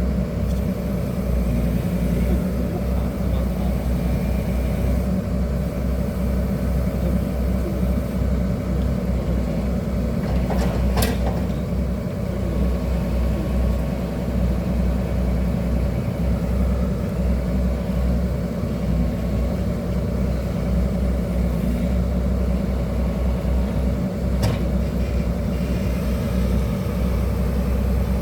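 Hydraulic excavator's diesel engine running steadily with a low drone. Two short sharp knocks come through, once near the middle and once near the end.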